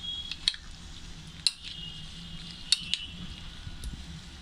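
A metal spoon clinking against a ceramic bowl while stirring chopped fruit salad: about four sharp clinks, the last two close together.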